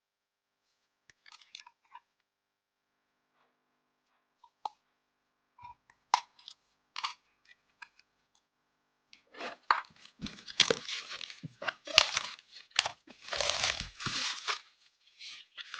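Packaging being handled and torn: a few scattered light taps and rustles at first, then from about nine seconds in a dense run of crinkling, tearing and crunching.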